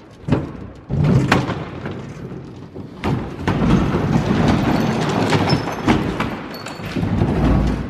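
Plastic pickup bed liner being pried and worked loose: a few sharp knocks, then from about three seconds in a long stretch of rough scraping and rumbling as it shifts over gravel and grain packed beneath it.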